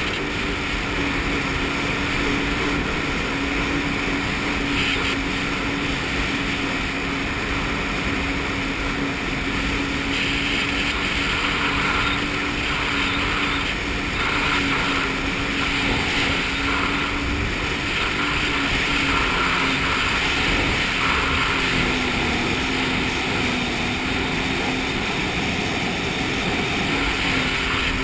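Jet ski engine running steadily at cruising speed over a constant rush of wind and water. Its pitch eases down briefly a little over 20 seconds in, then comes back up.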